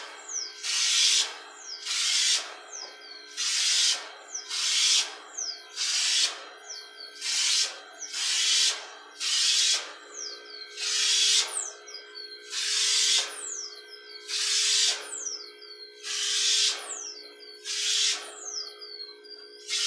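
Homemade compressed-air spray gun, built from an insecticide pump sprayer, spraying varnish in short hisses, one or two a second, with the compressor's steady hum underneath.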